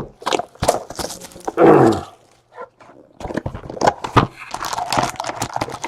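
A short, loud voice-like sound about a second and a half in, then quick clicking and rustling of trading-card packs and cards being handled.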